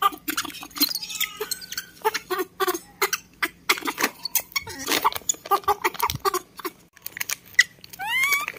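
Young macaques squeaking in short calls amid a run of sharp clicks and taps, with one rising squeal near the end.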